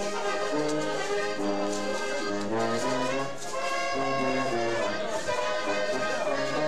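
Brass band playing a traditional dance tune, a bass line stepping from note to note under the brass melody.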